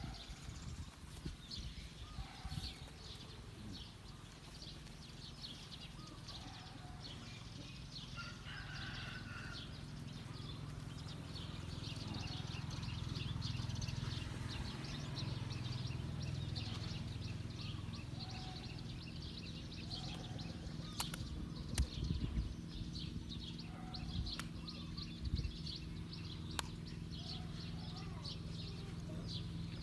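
Birds chirping and calling over a steady low hum, with a few sharp clicks about two thirds of the way through.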